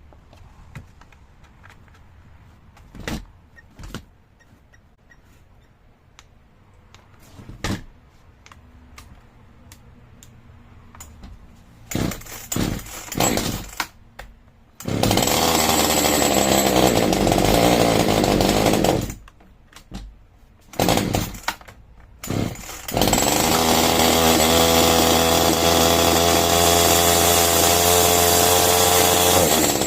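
Palmera two-stroke chainsaw's first start: a few handling clicks, then short bursts as the starter cord is pulled. The engine catches about halfway through and runs for about four seconds before dying. After a couple more pulls it starts again and keeps running steadily.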